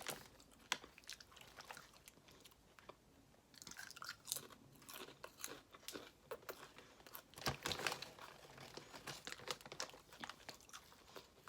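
A person chewing potato chips close to the microphone: scattered crisp crunches between quieter chewing, with a louder run of crunching about two thirds of the way through.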